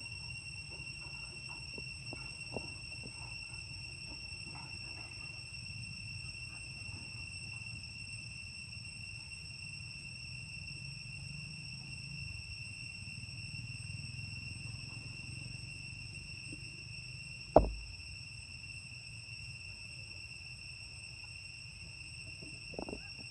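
Steady, high-pitched insect drone, with faint scattered clicks and one sharp knock about seventeen and a half seconds in.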